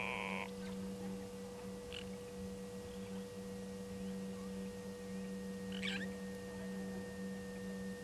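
Steady electrical hum with a thin high whine above it. A louder sound ends about half a second in, and a faint short chirp comes about six seconds in.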